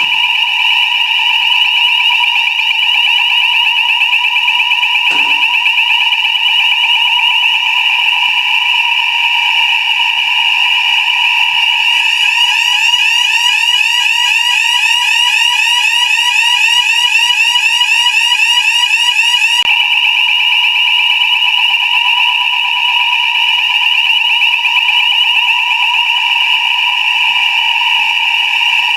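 Fire alarm sounding continuously: a loud, steady, high-pitched ring with a fast flutter in it. A second, higher layer of the same ringing joins about twelve seconds in and drops out about eight seconds later.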